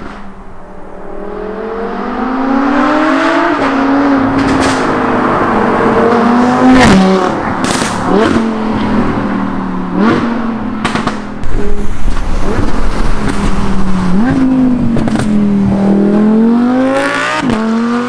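Audi R8 V10 Plus 5.2 V10 with a Quicksilver aftermarket exhaust accelerating hard through the gears. Its pitch climbs and drops at each upshift, several times, with sharp cracks around some of the shifts. It grows louder as the car approaches and passes.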